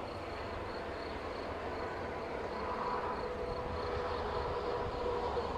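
Steady outdoor background: a low rumble with a faint high ticking about three times a second, and no bang. The Korsar 12 firecracker dropped into the pond fails to go off.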